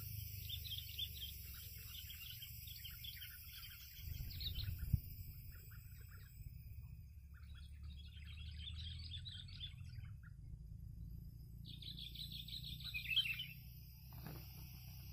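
Sooty-headed bulbuls (kutilang) chattering in three spells of quick, high calls, the last near the end the loudest, with a pause between. A low steady rumble lies underneath, and there is a short soft thump about five seconds in.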